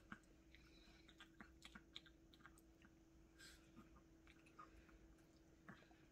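Yorkshire terriers chewing tangerine segments fed by hand: faint, irregular little clicks and crunches, with a brief rustle midway, over a faint steady hum.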